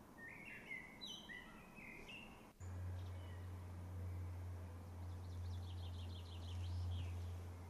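Songbirds singing, with a blackbird's whistled phrases in the first couple of seconds and a quick trill about five seconds in. About two and a half seconds in, a steady low hum starts abruptly and carries on under the birds, louder than they are.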